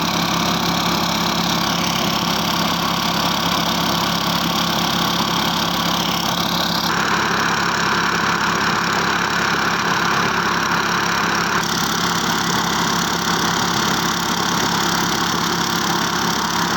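A small engine running steadily and loudly at a constant speed, with a dense hiss over its hum. Its sound shifts a little about seven seconds in and again near twelve seconds.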